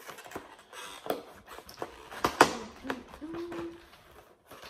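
Boxed nail gel kit being handled and turned over on a table: a series of taps and knocks on the box, the loudest about halfway. A short whine is heard about three seconds in.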